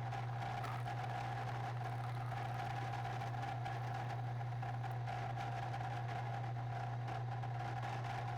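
Steady machine hum: a constant low drone with a fainter higher tone above it, holding level without change.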